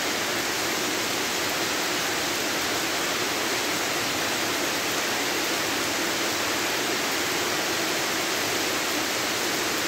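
Heavy monsoon rain pouring steadily on a paved path and garden plants: an even, unbroken hiss that neither swells nor fades.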